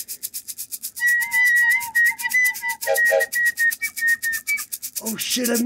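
Music: a flute-like lead melody over a fast, steady ticking beat and a low sustained tone. A voice comes in near the end.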